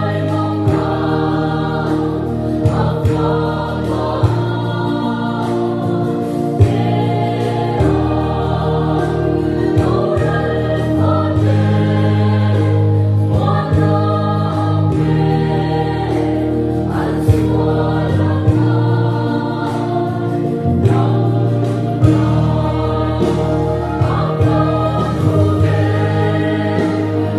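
Mixed choir of women and men singing a Mizo gospel hymn in parts, over steady low accompaniment chords that change every few seconds.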